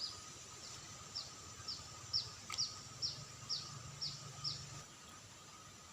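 A bird calling a series of short, high, falling chirps, about two a second, stopping about five seconds in, over a faint steady high-pitched hum.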